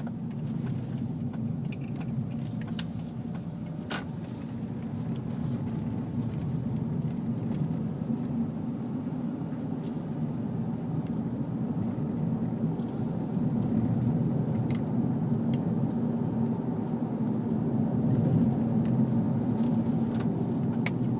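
Steady low rumble of a car's cabin on the move, growing somewhat louder over the last third, with a few faint clicks.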